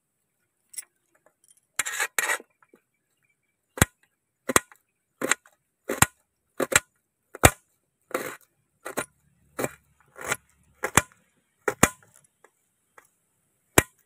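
Kitchen knife dicing an onion finely on a metal plate: sharp knocks of the blade striking the plate, about three every two seconds, after a few scattered cuts early on.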